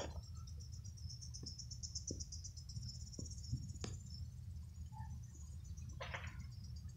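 Crickets chirping in a steady, fast-pulsing high trill over a low background rumble, with a sharp click about four seconds in.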